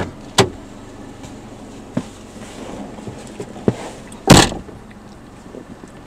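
A car door clunking open and shut: a handful of sharp knocks, the loudest about four seconds in.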